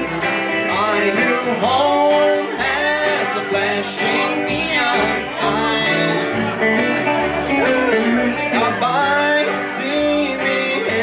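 A live country band playing: electric guitar, upright double bass and acoustic guitar, with the bass playing a steady run of separate low notes under bending guitar lines.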